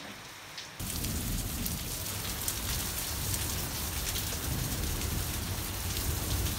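Steady rain falling, stepping up louder about a second in and then holding, with a low rumble underneath.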